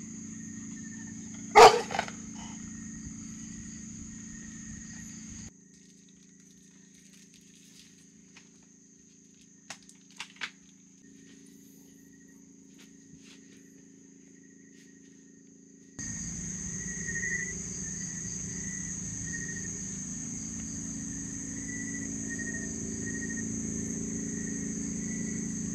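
Night insect chorus, crickets among them: a steady high-pitched ringing with pulsing chirps lower down, over a low steady hum. A single loud sharp sound comes about two seconds in. The ambience drops abruptly about five seconds in, with a few faint clicks, and returns about sixteen seconds in.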